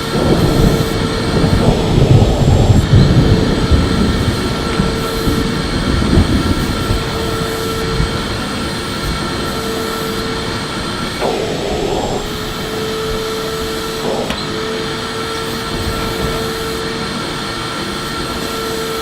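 Electric vacuum cleaner running steadily: a constant motor whine over rushing air. The low rumble is louder and rougher for the first several seconds, and the whine wavers briefly about eleven seconds in.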